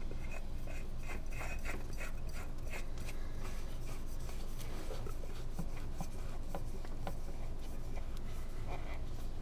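New spin-on oil filter being screwed on by hand: scattered soft rubbing and light clicks of the canister turning on its threads and of the hand on it, over a steady low hum.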